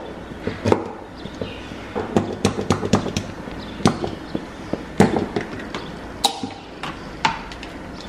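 Irregular clicks and pops as mustard is squeezed from a nearly empty plastic squeeze bottle onto marinating chicken fillets, with a metal spoon tapping and scraping on the plate as it spreads the mustard. The loudest pop comes about 5 seconds in.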